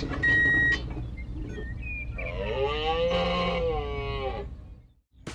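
Tractor engine sound effect running low and steady, with a short high horn beep near the start. In the middle a long drawn-out call rises and falls for about two seconds, and the sound fades away near the end.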